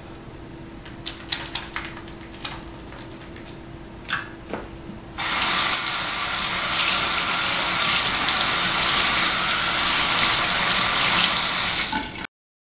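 Soapy hands rubbing together with small scattered wet clicks, then about five seconds in a bathroom faucet is turned on and water runs steadily into the sink over the hands, cutting off suddenly near the end.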